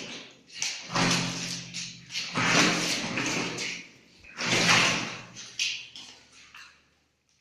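Sliding door being moved, scraping and knocking in its frame in three loud strokes, with lighter knocks near the end.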